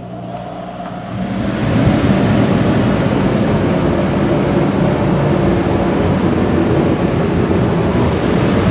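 Dyna-Glo kerosene heater starting up: a motor hum and a rising whine as its fan spins up, then a loud, steady rush of air and burner that builds over about a second and holds.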